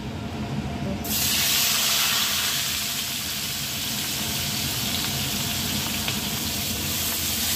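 Milk-boiled grated carrots dropped into hot ghee in a kadhai, with a sudden loud sizzle about a second in that settles into steady frying.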